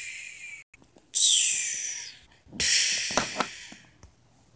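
Two hissing mouth-made blast sound effects for a toy fight, each about a second long, starting sharply and fading away, with a couple of sharp clicks in the second one.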